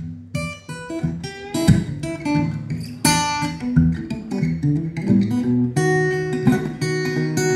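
Epiphone Masterbilt Century acoustic archtop guitar, plugged in through a flat-set acoustic amp, played as a run of picked single notes mixed with strummed chords.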